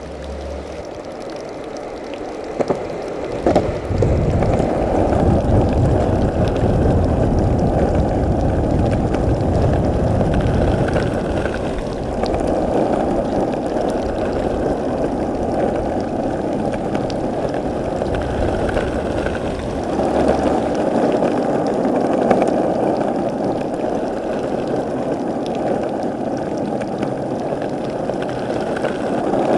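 Skateboard wheels rolling over pavement: a steady rolling rumble with a couple of sharp clicks about three seconds in.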